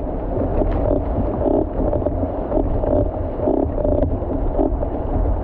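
Water rushing and splashing along an outrigger canoe's hull as it is paddled through choppy wake, with wind buffeting the microphone. A regular pulse recurs about once a second.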